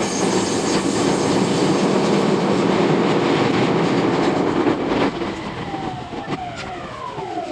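Running noise inside an E231-series electric train's motor car. From about five seconds in, the traction motors' whine falls steadily in pitch as the train brakes to a stop.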